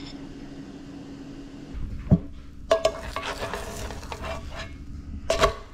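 Kitchen utensil knocking, clinking and scraping against a dish. After a faint steady hum there is a sharp knock about two seconds in, then a run of light taps with short ringing notes and a louder cluster of clinks near the end.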